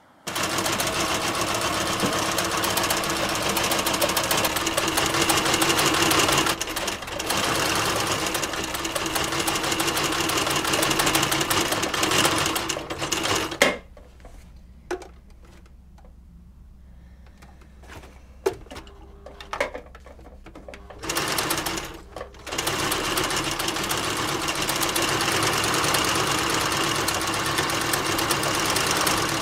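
White electric domestic sewing machine stitching at speed. It runs for about the first 13 seconds, stops for about eight seconds with only a few clicks and a short run of stitches, then runs steadily again.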